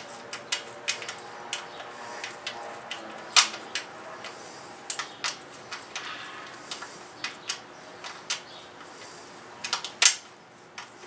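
Irregular sharp clicks and taps of a socket and small bolt hardware being worked by hand on a motorcycle's ignition coil mounting, about one or two a second, with the loudest knocks about a third of the way in and again near the end.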